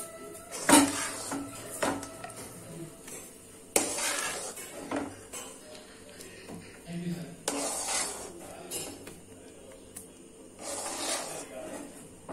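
Metal spoon knocking and scraping as sticky jaggery-coated peanut chikki mix is pushed off onto a wooden board; the sharpest knock comes about a second in, with several shorter scrapes after it.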